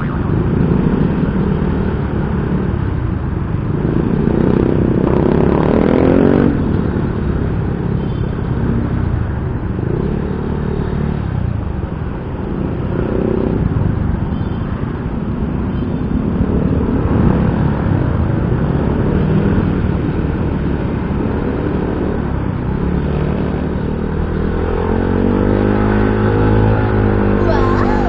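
Yamaha Mio i 125 scooter's single-cylinder engine running on the move, its revs rising about five seconds in and again near the end, under steady road and wind noise picked up by a homemade external mic on an action camera.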